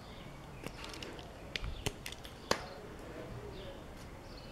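Hands handling an electrical wire on a workbench: a few faint, sharp clicks and ticks, the sharpest about two and a half seconds in.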